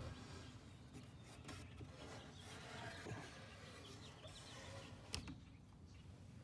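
Faint workshop handling sounds of small wooden parts: light rubbing and soft knocks, with one sharp click about five seconds in.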